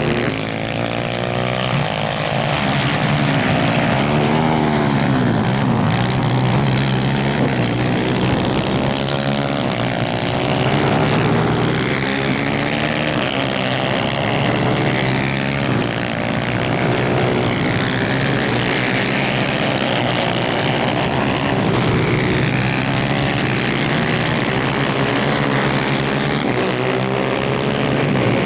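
Several 250cc two-stroke superkart engines racing at once, a buzzing, high-revving sound whose pitches rise and fall as the karts accelerate and lift off, overlapping throughout.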